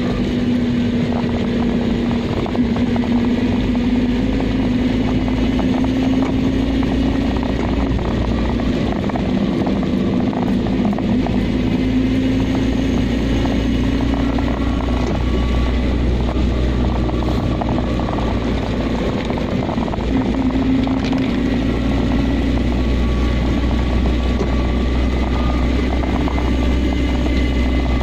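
Car engine and tyre noise on a wet road, heard from inside the cabin: a steady drone with a low rumble, its pitch drifting slightly up and down with speed.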